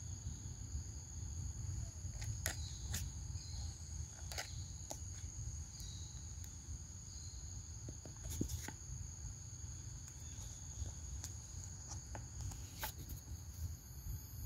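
Steady high-pitched insect drone in forest ambience, with a low rumble underneath and a few sharp clicks scattered through it.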